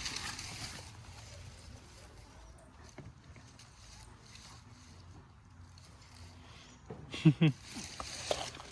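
A dog barks twice in quick succession about seven seconds in, over quiet outdoor ambience.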